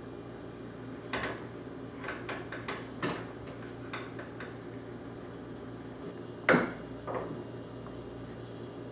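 Irregular knocks and rattles from a wooden table football table as its rods are pushed and pulled. One sharper knock a little past the middle is the loudest.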